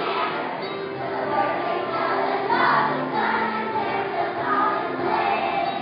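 A choir of young children singing together, heard from the back of a large school gym.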